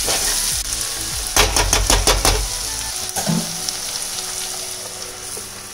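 Sliced ivy gourd sizzling as it shallow-fries in oil in a kadai, half-crisp. A steel spoon scrapes and stirs through the slices in a quick run of strokes between about one and two and a half seconds in, then once more a little later.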